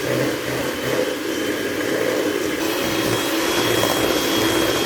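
Electric mixer running steadily as it beats a batter of eggs, sugar, oil and vanilla, with a thin high whine joining about halfway through.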